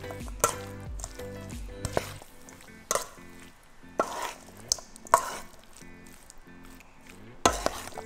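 A metal spoon tossing a wet diced tuna and avocado mix in a stainless steel bowl, clinking and scraping against the bowl in irregular knocks, about seven in all, over background music.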